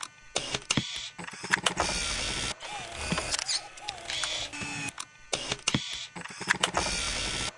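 Glitch sound effects of an animated logo reveal: stuttering rushes of static and many sharp digital clicks, with a brief warbling tone near the middle. The effects cut off abruptly at the end.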